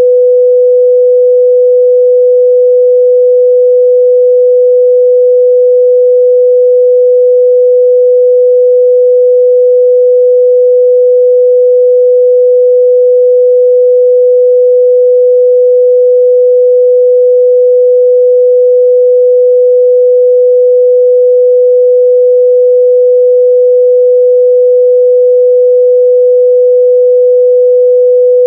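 A steady, loud 497 Hz sine-wave test tone: one pure, unchanging mid-range pitch held throughout, used to check a speaker's or headphone's response.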